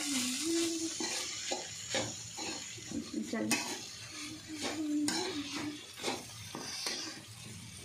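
A metal spoon stirring and scraping poha (flattened rice) and vegetables around a hot pan, in irregular strokes over a light sizzle, as the poha is mixed in with the cooked vegetables.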